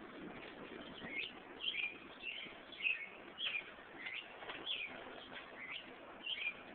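A songbird chirping repeatedly, short high chirps coming nearly twice a second from about a second in.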